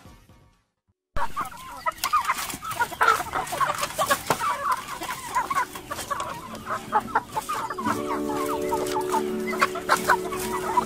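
A flock of chickens clucking busily as they peck at a cabbage leaf, with many quick sharp pecking clicks; it starts suddenly about a second in. Near the end, music with held notes comes in underneath.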